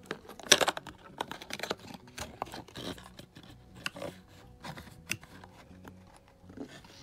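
Clear plastic clamshell packaging of an NVMe SSD being handled in the fingers: irregular crinkles and clicks of stiff plastic, loudest about half a second in.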